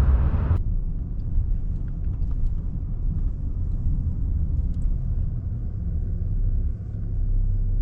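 Steady low rumble of a truck on the road, heard from inside the cab, with a few faint ticks and rattles. The brighter road hiss cuts off abruptly about half a second in.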